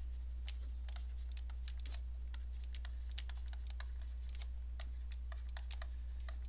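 Stylus tapping and clicking on a tablet as it writes by hand: light, irregular clicks, several a second, over a steady low hum.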